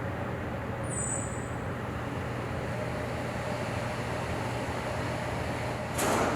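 Steady engine drone of an aircraft in flight, a low hum under a constant hiss. A short loud burst of noise comes near the end.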